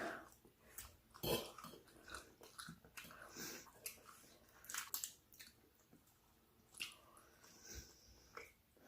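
A person eating close to the microphone: irregular chewing and mouth noises, with a couple of louder bites about a second in and about five seconds in.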